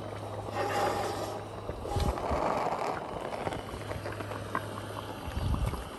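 Wind buffeting the microphone in gusts, with low thumps about two seconds in and near the end, over a low steady hum that comes and goes.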